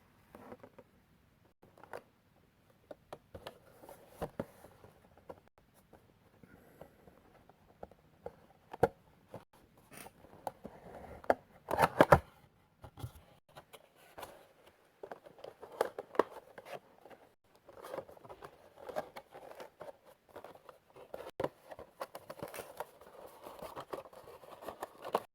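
Cardboard and plastic packaging of a vinyl figure being opened by hand: scattered scrapes, clicks and tearing. The loudest stretch comes about twelve seconds in.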